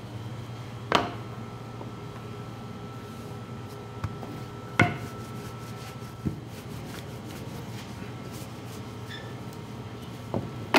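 Wooden rolling pin rolling out a thin sheet of dough on a floured stainless-steel counter, with a few sharp knocks against the steel. The loudest knocks come about a second in and near five seconds, over a steady hum.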